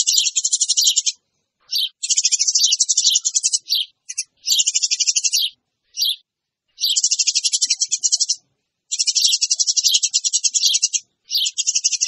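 Eurasian tree sparrow lure call: loud, very rapid high-pitched chirping chatter in bursts of one to two seconds, broken by short gaps and a few single chirps, the noisy sparrow sound played to draw other sparrows in.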